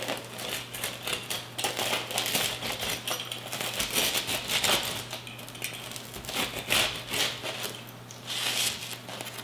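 Knife sawing through the baked crust of a calzone: a run of irregular crunchy crackles and scrapes that come in clusters.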